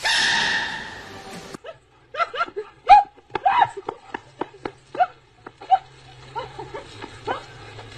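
A baby giant panda's sneeze: a sudden loud burst right at the start, fading over about a second and a half. After it, a dog barks and yelps in quick short bursts, several a second, at a spraying garden hose.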